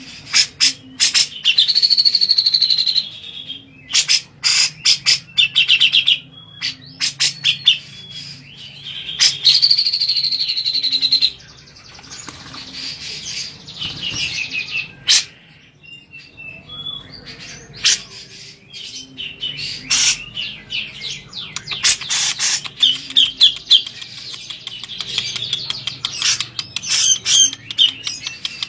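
Cucak jenggot (brown-cheeked bulbul) calling over and over: sharp chirps and quick clicking notes, with two longer rattling trills early on and near the middle. It calls more densely toward the end. Around the middle the bird flaps and splashes in its bath water.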